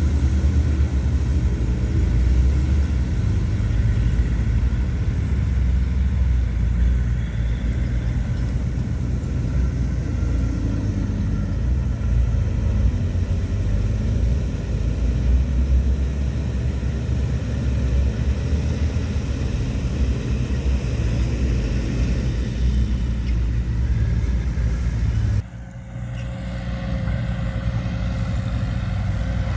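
Diesel engines of heavy earthmoving machinery running steadily with a deep rumble. About 25 seconds in the sound cuts off abruptly, and a different engine sound takes over.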